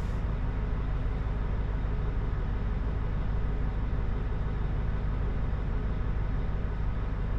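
Steady low drone of an Oshkosh Striker 4x4 crash-rescue truck's diesel engine idling, heard from inside the cab.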